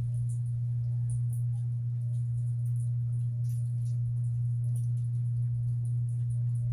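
A steady low hum that does not change, with faint scattered ticks above it.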